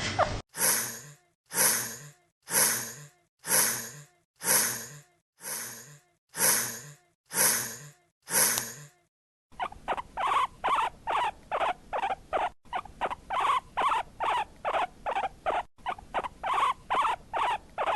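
Rabbit sounds in two runs. First come about nine noisy, breathy puffs roughly a second apart, each falling in pitch. Then a faster run of short sounds follows, two or three a second, broken briefly twice.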